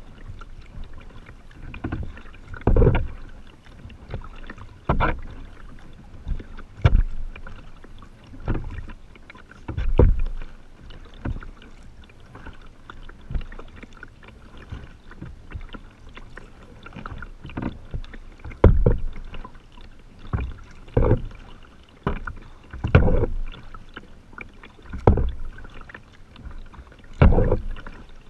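Kayak paddle strokes splashing into calm water, about one every two seconds, softer for several seconds in the middle, with light water noise in between.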